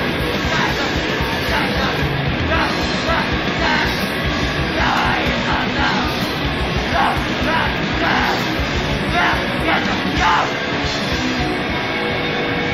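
Noisy hardcore punk: heavily distorted guitar and bass, fast drumming and harsh noise under yelled vocals. The yelling stops about eleven seconds in, leaving the instruments running.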